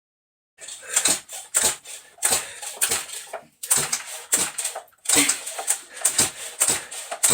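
Chainsaw's recoil starter cord yanked over and over in quick short pulls, about two a second, each a sharp rasp of rope and the engine turning over without catching: the saw won't start.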